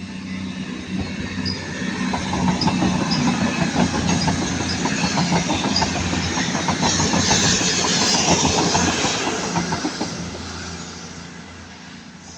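Class 221 Voyager diesel multiple unit passing at speed. Its engine hum and the clicking of its wheels over the rail joints build up, are loudest a little past the middle, then fade away.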